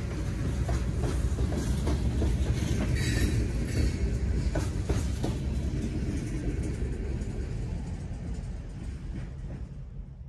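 Freight train's covered hopper cars rolling past, a low rumble with sharp clicks of wheels over the rail joints. In the second half the sound fades away as the end of the train passes and recedes.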